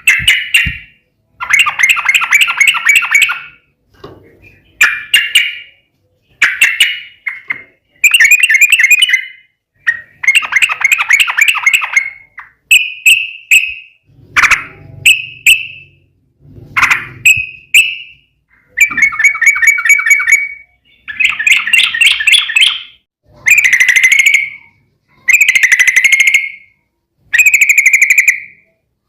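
Yellow-vented bulbul (trucukan) singing loud, bubbly chattering phrases, each a second or two long, repeated over and over with short pauses between them. It is the long, rapid 'ropel' song used as a lure to get other trucukan to answer.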